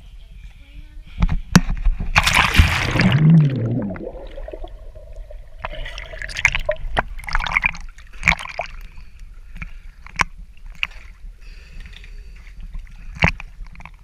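A big splash about a second in as the camera goes into the water, then water sloshing and splashing close against the camera with sharp little slaps as it moves along the surface.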